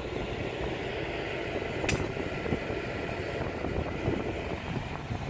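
Steady low rushing rumble of wind and ship's machinery on the open upper deck of a cruise ship under way, with one sharp click about two seconds in.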